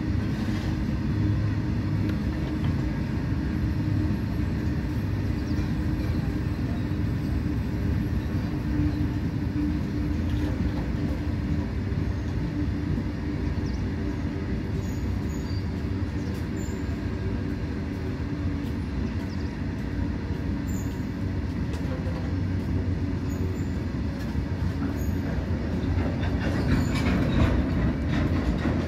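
Freight train of tank wagons rolling past, a steady rumble of steel wheels on the rails. Near the end it gets louder, with sharper clicks as wheels cross rail joints.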